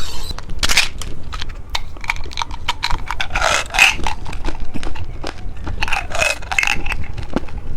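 Close-up crackling and crinkling of a rainbow bean candy being unwrapped and eaten. Irregular sharp crackles run throughout, with louder rustling bursts about three seconds in and again about six seconds in.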